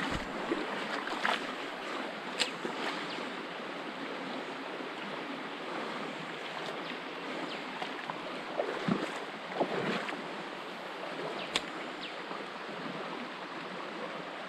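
Shallow creek water running steadily over a stony bed, with a few faint clicks scattered through it.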